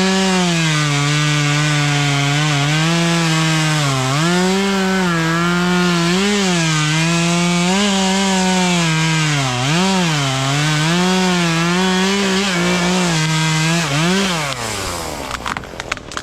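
Gas chainsaw at full throttle cutting through a maple limb, its pitch dipping again and again as the chain bites into the wood. About fourteen seconds in the throttle is released and the engine winds down, followed by a few sharp cracks and knocks.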